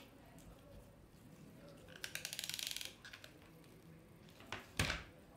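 Handling noises of hot-gluing paper leaves at a work table. About two seconds in there is a brief fast rattle of clicks. Near the end comes a sharp knock, the hot glue gun being set down on the table.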